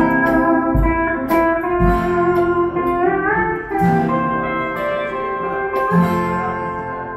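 Live band playing an instrumental intro led by guitar over bass and drums. A guitar note bends upward about three seconds in, and the playing dies down near the end.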